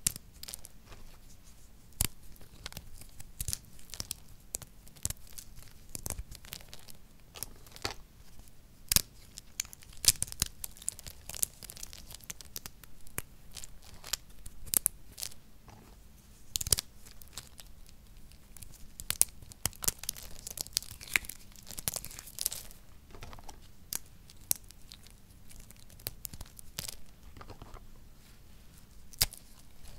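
Dry soap chunks and flakes crumbled and crushed between the fingers: a dense, irregular run of crisp crackles and crunches, with the loose pieces rustling.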